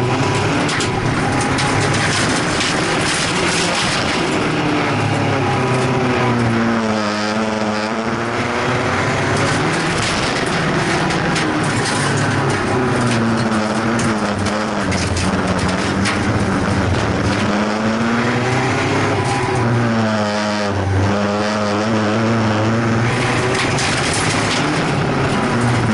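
Folkrace car's engine heard from inside the stripped cabin, revving hard under racing load and rising and falling with the throttle. Its note drops sharply and climbs back twice, about seven and twenty seconds in, as the driver lifts off and gets back on the power.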